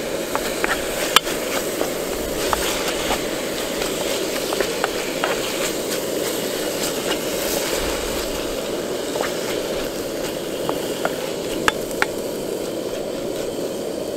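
Diced chicken thigh sizzling and frying in a Trangia frying pan, with scattered pops and the light knocks of a wooden spoon stirring and turning the pieces. A steady rushing noise runs underneath.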